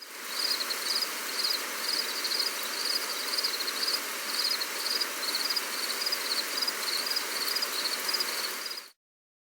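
Steady gentle rain hiss with a high, repeating chirp about two to three times a second over it; the whole recording cuts off abruptly near the end.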